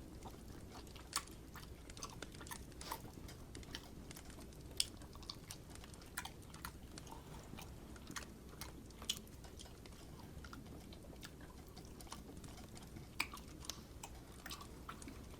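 Close-miked eating sounds: chewing and biting rotisserie chicken, heard as irregular short sharp clicks and smacks over faint low room noise.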